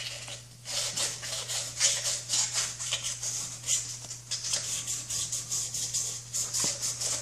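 400-grit wet-and-dry sandpaper rubbed by hand around the inside of a Porsche 914 rear wheel bearing housing, a scratchy rasp in quick strokes, about three or four a second. The bearing seat is being lightly honed to take off any burrs before the new bearing goes in.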